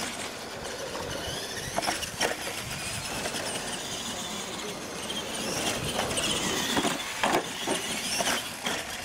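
Radio-controlled monster trucks racing on dirt, their motors and gears whining up and down as they speed up and slow. There are several sharp knocks as they bump over the ramps and obstacles, most of them in the second half.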